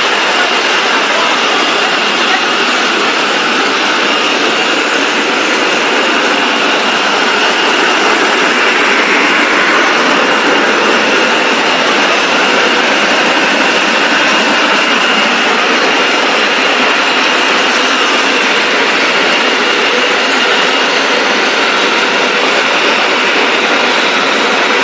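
CNC oscillating-knife cutting machine running: a steady, loud rushing noise with a faint high whine over it.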